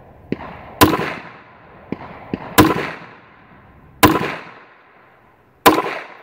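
Kel-Tec PMR-30 .22 Magnum pistol firing Aguila 40-grain rounds: four loud shots about one and a half seconds apart, each with a short echo. A few fainter sharp cracks come between the first shots.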